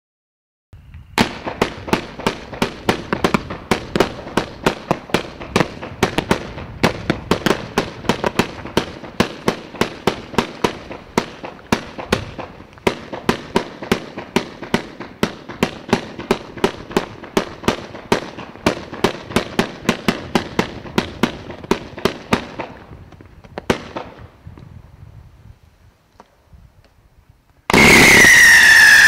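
A 258-shot, 1.25-inch firework cake firing in a rapid string, about three sharp launch pops a second under crackle. The pops thin out and die away after about 22 seconds. Near the end a much louder rush of hissing with a falling whistle starts suddenly.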